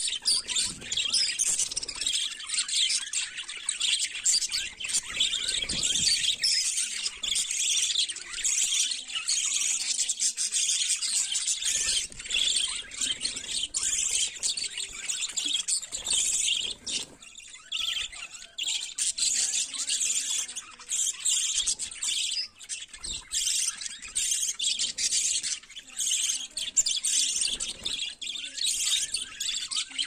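A flock of budgerigars chattering and warbling without a break: many high chirps overlapping in a dense, steady chatter.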